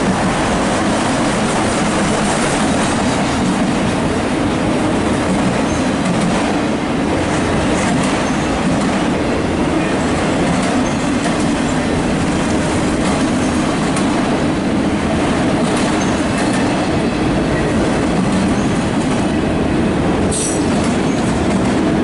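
Freight train of empty autorack cars passing: a steady, loud rumble and rattle of steel wheels on the rails, with a brief high squeal near the end.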